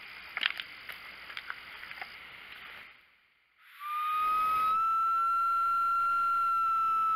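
One long whistle blown on a hand-held mouth call, starting about three and a half seconds in. It holds a single steady pitch for about four seconds, rising slightly at the start and dropping off at the end. Before it, faint clicks and rustles.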